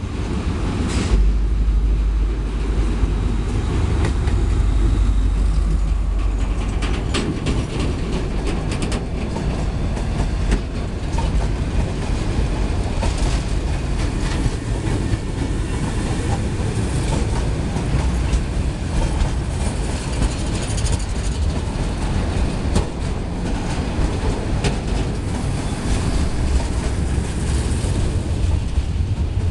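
Diesel-hauled freight train passing close by: a heavy low engine rumble as the lead diesel locomotive goes past in the first few seconds, then a steady rolling roar with a dense clickety-clack of wheels over rail joints as a second diesel locomotive and spine wagons loaded with tank containers roll by.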